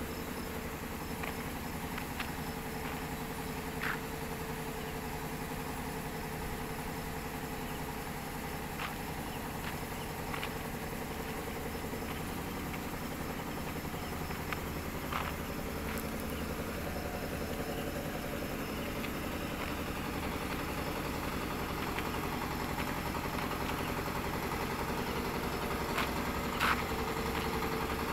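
An engine running steadily, an even hum that grows a little louder toward the end, with a few faint clicks over it.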